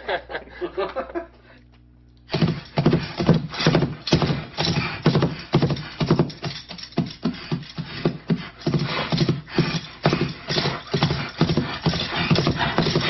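Foley playback of a galloping horse: rapid hoofbeats layered with jingling bridle tack and horse snorts, starting about two seconds in.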